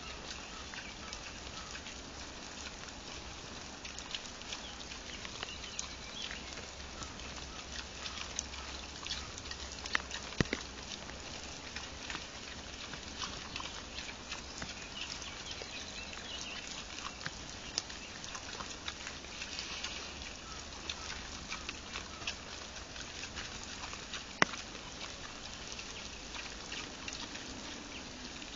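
Wild boar crunching maize kernels: scattered sharp clicks and cracks over a steady hiss, with a few louder cracks about ten seconds in and again near the end.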